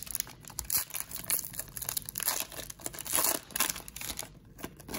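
Foil wrapper of a Panini Chronicles basketball card pack crinkling and tearing open, a rapid run of crackles that dies down about four seconds in, followed by a couple of light ticks.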